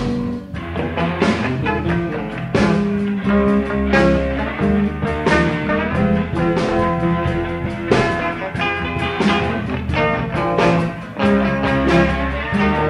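Rock music: guitar over a steady beat of drum hits.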